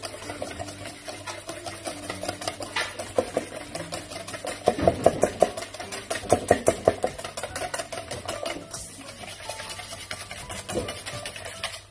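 Wire whisk beating an egg-and-dark-brown-sugar pie filling in a stainless steel bowl: a fast run of metallic clicks and scrapes, loudest in the middle.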